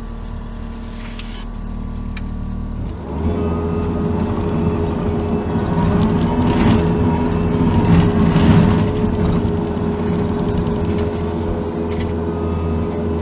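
Case TV450 compact track loader's diesel engine running steadily, then throttled up about three seconds in and working under load, louder in the middle.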